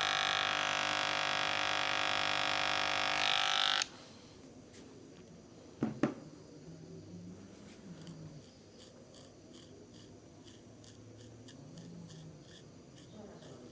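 Cheap electric hair clipper buzzing steadily, then switched off abruptly about four seconds in. A sharp click follows, then a run of light, quick snips like scissors trimming hair.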